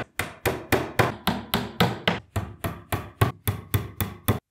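Small hammer tapping wooden dowels into the pre-drilled edge holes of a particleboard IKEA Trofast shelf frame: a quick, even run of sharp knocks, about three or four a second.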